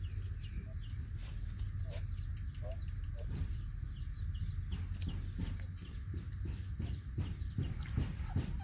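Chickens clucking, with a short high peep repeating about twice a second over a steady low rumble.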